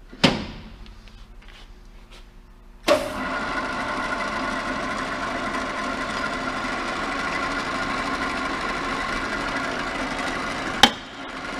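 A South Bend 13" x 40" toolroom lathe with a flat belt drive. It starts with a sharp metal clunk as the belt is retensioned. About three seconds in, its 3/4 hp three-phase motor switches on abruptly and the lathe runs steadily at speed with a whirring whine, and a sharp click cuts in near the end.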